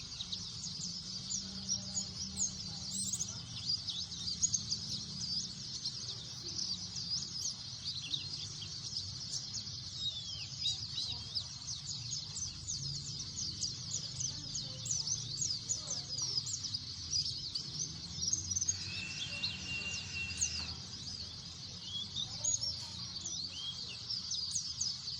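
A flock of white-eyes (pleci) chattering, with many rapid, high, overlapping chirps. About three quarters of the way through, a steady high tone sounds for about two seconds.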